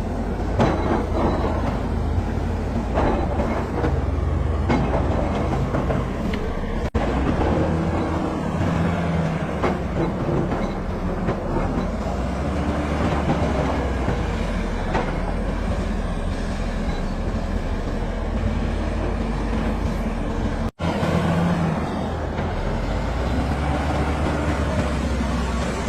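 Caterpillar crawler bulldozer working: its diesel engine runs steadily with the continuous clatter and clanking of its steel tracks. The sound drops out for an instant twice.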